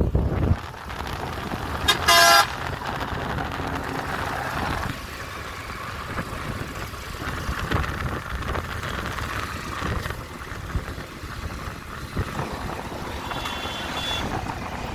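Wind and road noise from a moving motorbike, with one short vehicle horn toot about two seconds in that is the loudest sound. A fainter high tone comes near the end.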